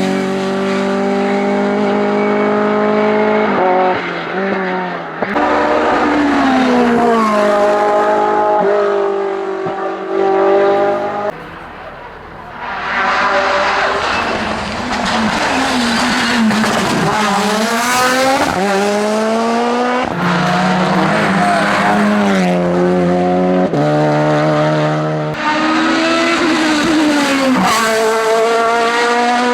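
Racing cars climbing a hill at full throttle: several separate passes cut together, engines revving hard, rising in pitch and dropping at each gear change, with the sound swelling and fading as each car goes by.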